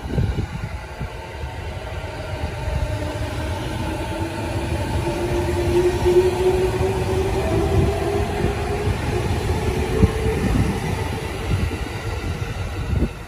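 JR East 209 series electric commuter train departing. The whine of its traction motors rises steadily in pitch as it accelerates, over a heavy rumble of wheels on the rails.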